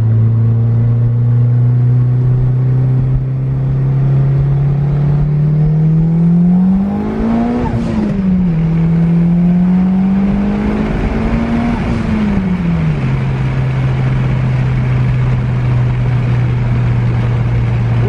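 Turbocharged 4G63 four-cylinder of a first-generation Eagle Talon, running E85 at about 26 psi of boost, heard from inside the cabin. It pulls hard through second gear, the revs drop at the shift to third about eight seconds in, it pulls again in third, then eases off and settles to a steady cruise.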